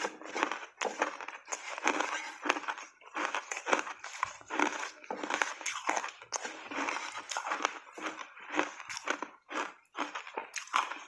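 Close-miked crunching and chewing of reshaped ice coated in matcha and milk powder: a quick run of crisp crunches, several a second, with a few brief pauses.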